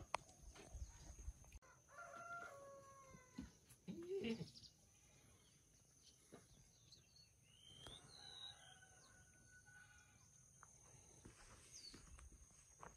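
Rooster crowing faintly, with one long crow about eight seconds in among a few shorter calls.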